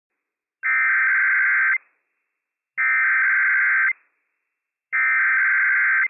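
Emergency Alert System SAME header data bursts broadcast on NOAA Weather Radio: three identical harsh, buzzy tone bursts of about a second each, a second apart. They are the digital header that opens a Required Weekly Test alert.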